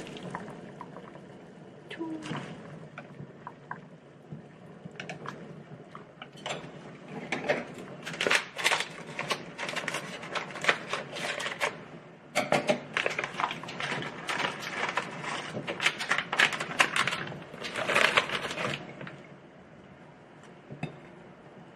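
Crinkling and rustling of a plastic food sachet being squeezed and shaken out, in dense, irregular crackling bursts that are loudest through the middle of the stretch and fade near the end.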